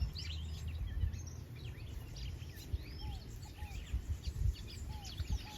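Many birds chirping and calling over one another in short rising and falling notes, over a steady low rumble.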